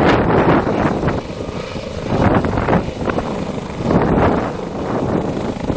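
Airbus H145 twin-turbine helicopter hovering low and close: a continuous rush of rotor and turbine noise that rises and falls in irregular swells as the aircraft turns.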